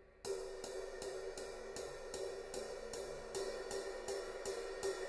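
A 1940s trans stamp A Zildjian 20-inch extra thin ride cymbal (1820 g) played with a stick tip in a steady ride pattern. The even strokes come about two and a half a second, starting about a quarter second in, and each has a dark tone with a short decay.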